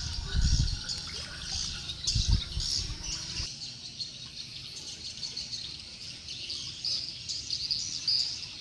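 Swiftlet calling sound: a dense, continuous twittering of many high chirps, a lure call meant to draw swiftlets to a nesting house. Loud low thuds come twice in the first three seconds, and the low rumble cuts off suddenly about three and a half seconds in.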